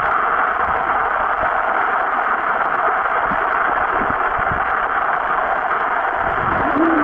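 Muffled, steady rushing hiss of water heard by a camera held underwater, with a few dull low knocks around the middle.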